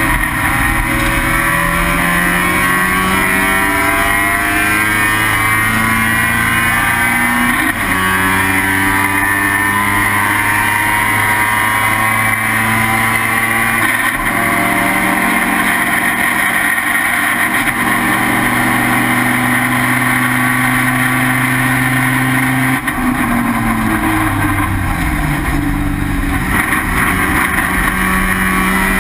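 Mazda RX-7's 12A rotary race engine under hard acceleration, climbing in pitch through the gears with sharp upshifts about 8 and 14 seconds in. It holds high revs, then falls in steps through downshifts under braking around 23 to 26 seconds, and pulls up again near the end.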